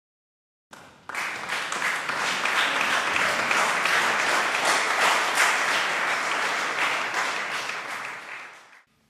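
Audience applauding: a dense, steady clapping that starts about a second in and dies away near the end.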